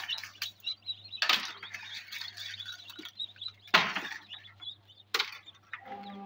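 Dry hatched eggshells crackling and crunching as they are picked off an incubator's wire-mesh tray by hand, with three loud crunches. High peeping from newly hatched chicks and a steady low hum run underneath.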